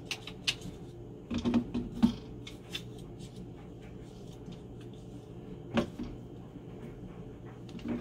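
Scattered light clicks and knocks of a plastic slip nut and drain pipe being handled and hand-tightened under a sink, with a small cluster about a second and a half in and a sharper knock near six seconds.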